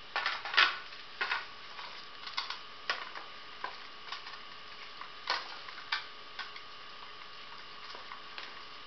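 Metal spoon clinking and scraping against a stainless steel bowl while stirring a thick semolina and vegetable batter: irregular taps, busiest in the first second and a half, then spaced out.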